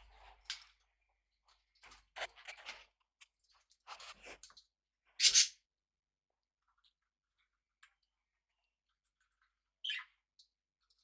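Small pet parrots giving scattered short chirps and calls, with faint rustling between them. The loudest call comes about five seconds in, and a short call falling in pitch comes near the end.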